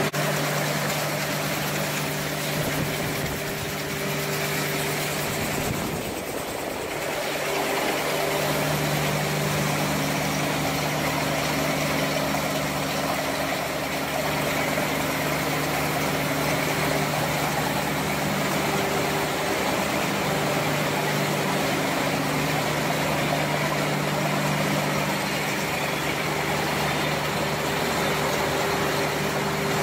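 Can-production line machinery running steadily: a continuous mechanical hum with a few steady low tones over a broad rushing noise, dipping briefly about six seconds in.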